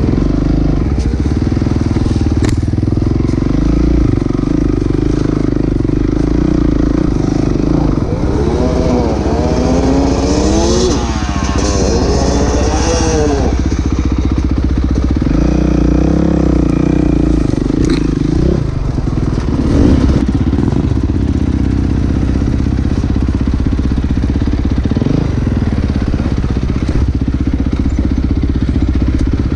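Dirt bike engine running close up under way on a trail, revs climbing and dropping several times in the middle as the throttle is worked, with further brief rises in revs later on.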